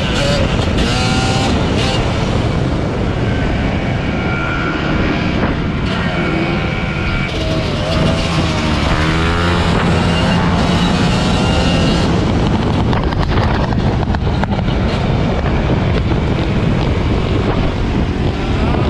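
Motorcycle engines running on the move, their pitch rising and falling with the throttle, under a steady rush of road and wind noise.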